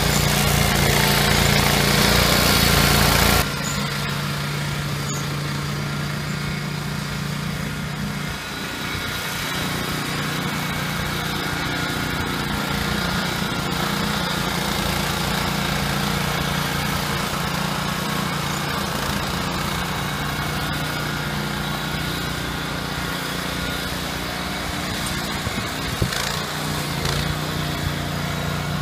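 Billy Goat 24-inch Outback brush cutter with its 13 HP 388cc Honda engine, running steadily as it mows through tall weeds and brush. The sound drops abruptly to a lower level about three and a half seconds in.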